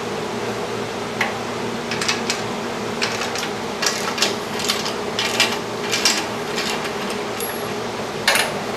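A socket ratchet with a 21 mm socket clicking in short irregular strokes as a bolt on the home gym is undone, over a steady low hum.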